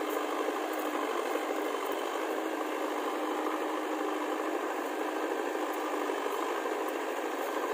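Diesel engine of a JCB 3DX backhoe loader running steadily as the backhoe arm swings up with a loaded bucket of soil.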